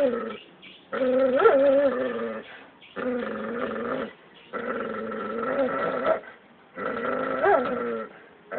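A pet animal growling during a dog-and-cat fight: a run of about five long, drawn-out pitched growls, each lasting a second or more, with short pauses between. Some briefly jump up in pitch.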